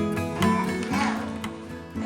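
Background music with plucked notes at a steady beat.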